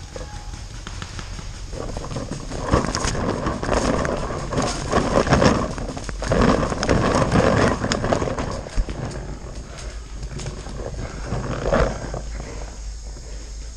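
A player scrambling through leaf litter and brush, with uneven footfalls, crunching and rustling, and hard breathing close to the microphone. It is loudest in rhythmic swells in the middle, with a few sharp knocks.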